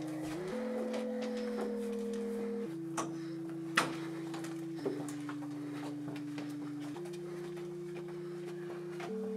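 Low held chords of a film score, moving to a new chord about every two seconds. Over it come a few sharp snaps of paper being handled, the loudest nearly four seconds in.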